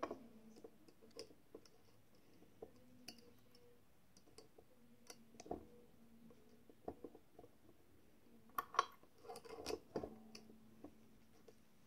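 Small metal clicks and taps as snap-button parts are handled and seated on the steel die and punch of a hand press, with a cluster of louder clicks about nine seconds in.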